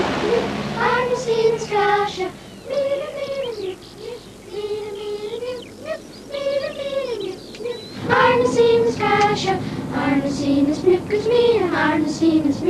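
A children's choir singing a song, in phrases of held notes that glide between pitches, with a louder phrase starting about two-thirds of the way through. A faint low engine hum lies under the first couple of seconds.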